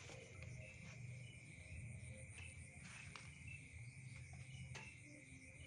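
Faint night-time insect chorus: a steady, continuous high trill with short chirps repeating over it, a few brief clicks, and a low rumble beneath.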